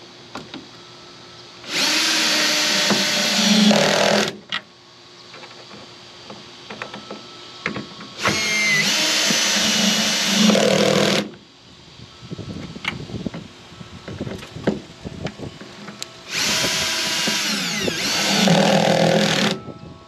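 Cordless drill driver running in three bursts of about three seconds each, driving home the bolts that fasten a jon boat's transom board. Between the bursts come light clicks and knocks of the socket on the bolts.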